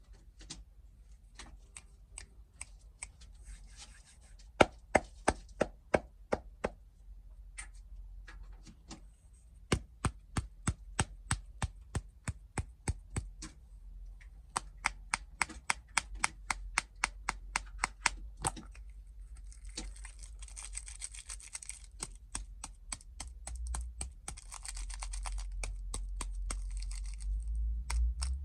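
Snack packaging being handled: runs of sharp taps and clicks, about three or four a second, then crinkling and tearing of the wrappers from about two-thirds of the way in.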